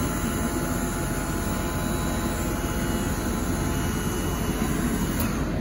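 Wheelchair lift's motor running steadily as the platform folds in to stow, over the steady drone of the idling Duramax turbo diesel V8.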